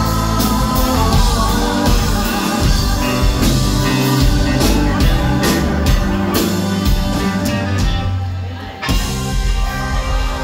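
Live rock band playing drums, bass and electric guitar, with two women singing in the first part. About eight seconds in the band drops out for under a second, then comes back in.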